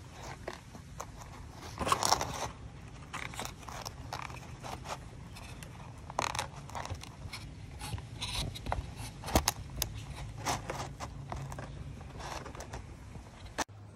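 Puppies chewing and nosing a thin plastic egg tray on concrete: irregular crackles, scrapes and clicks of the plastic, loudest about two seconds in and again near the middle.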